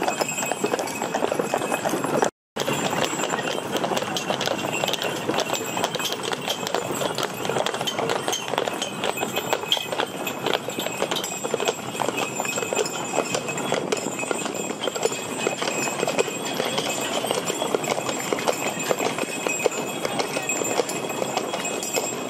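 Hooves of several draft horse teams clip-clopping at a walk as they pull wagons along a road, a steady clatter of many overlapping hoof strikes. The sound cuts out for a moment about two seconds in.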